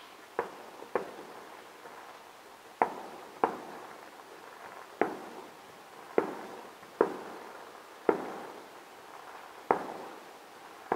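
Aerial firework shells bursting: about nine sharp bangs at uneven gaps of roughly a second, each trailing off in an echo.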